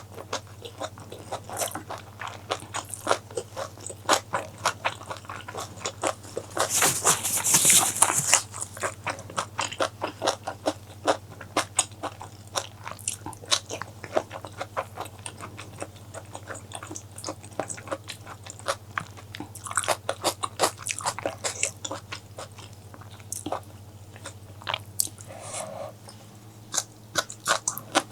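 Close-miked eating: wet chewing and crunching in quick, irregular clicks, with a louder crunchy stretch about seven seconds in. A steady low hum runs underneath.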